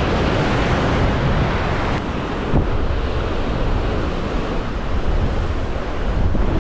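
Rough surf breaking and washing over rocks just below, a steady rushing noise, mixed with wind buffeting the microphone.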